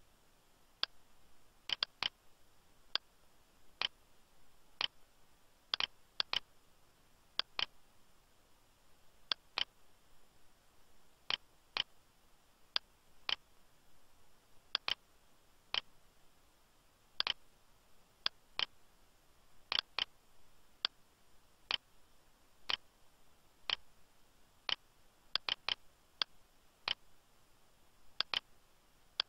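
Computer mouse clicking: single sharp clicks about once a second, some coming two in quick succession, over a faint steady hiss.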